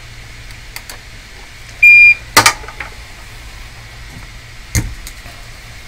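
A single short, loud electronic beep about two seconds in, followed at once by a sharp click and, a couple of seconds later, a duller knock, over a steady low hum.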